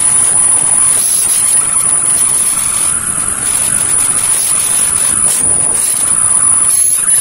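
Electric drill running steadily with a high whine while its metal bit bores out a stripped screw in a gas stove's steel top, wetted with a little water; the grinding of the cutting rises and falls as pressure on the bit changes.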